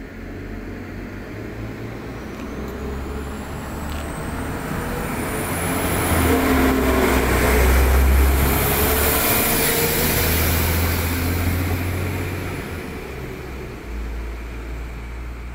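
Northern Class 195 diesel multiple unit pulling away and passing close by. Its engines run with a low drone and a high whine that rises as it gathers speed, and the sound is loudest about halfway through as the train goes past, then fades as it moves off down the line.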